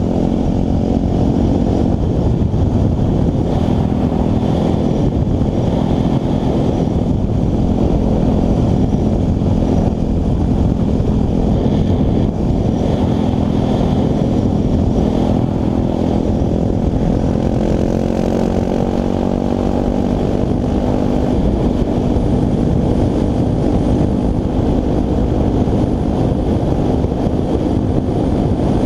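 Dirt-style motorcycle engine running at a steady cruise, its note drifting slowly up and down with small throttle changes, under heavy wind rush on the helmet-mounted microphone.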